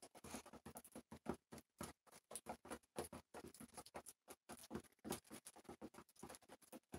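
Pigeons pecking grain off a wooden board: faint, irregular tapping of beaks on the wood, several taps a second.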